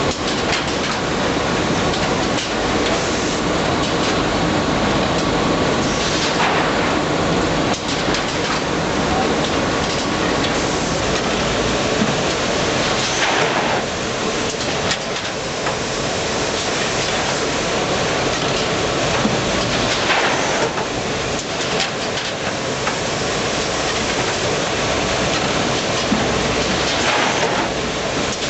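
Automatic open-mouth bagging machine for powder and granules running: a steady dense mechanical clatter and rush, with a brief louder surge about every seven seconds as the machine cycles.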